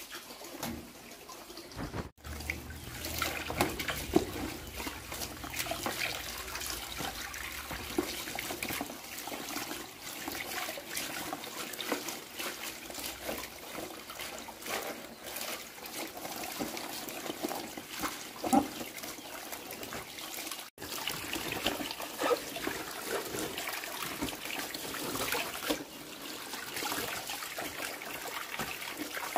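Water from a hose running into a plastic basin of large green leaves, splashing and trickling steadily while hands rub the wet leaves. The sound cuts out for a moment twice, once a couple of seconds in and again about two-thirds of the way through.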